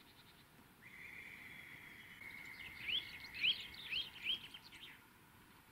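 Eurasian nuthatch singing: a long, even high note, then four short rising whistles about half a second apart.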